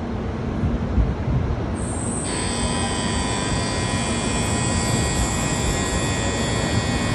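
N700-series Shinkansen bullet train pulling in along the platform: a steady rumble of the passing cars, joined about two seconds in by several steady high-pitched whining tones that hold on.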